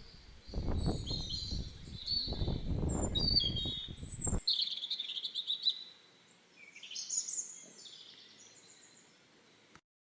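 Small birds singing and chirping, with many short high calls. A low rumbling noise runs under them for the first few seconds. The birdsong fades out and the sound cuts to silence near the end.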